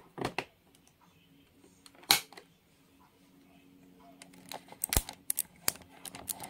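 Multimeter test-probe tips clicking and scraping as they are pushed into the slots of a wall power outlet: scattered sharp clicks, the loudest about two seconds in, then a quick run of clicks near the end, over a faint steady hum.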